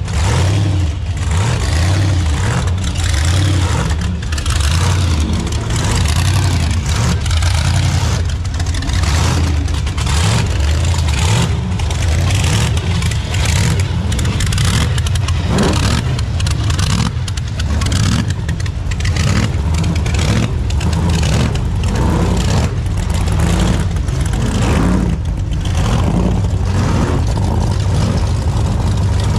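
Several rat-rod V8 engines with open exhaust headers running at low speed as the cars roll by, a deep, uneven rumble with occasional throttle blips.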